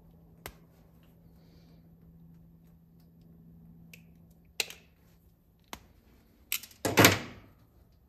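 Hand wire stripper/crimper working on red and black wire: a few sharp clicks and snaps, one early and a cluster in the second half, the loudest just before the end.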